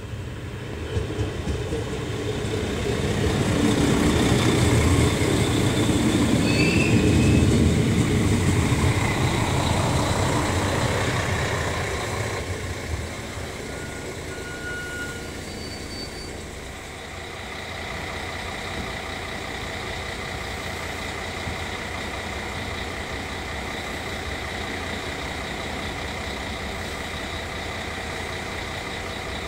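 AKN LINT 54 diesel railcar pulling into the platform. Its engine and wheels rumble louder as it comes alongside, then die down as it stops, with a few brief high squeaks. From about two-thirds of the way in it stands idling with a steady engine hum.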